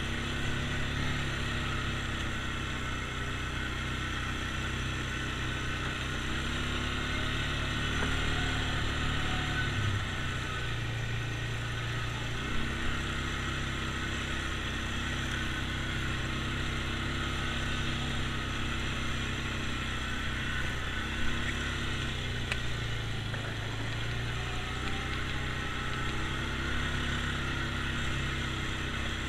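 ATV engine running at low trail speed, its pitch rising and falling gently as the throttle is worked. A couple of short knocks come through about halfway and about two-thirds of the way in.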